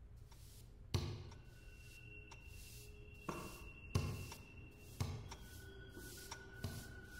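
A series of irregular thuds and knocks, the loudest about a second in and about four seconds in, over a low hum with faint high tones held between them.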